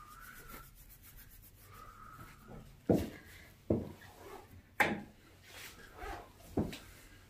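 Three sharp knocks, the loudest sounds, about a second apart in the middle, with quieter rubbing and handling noises around them.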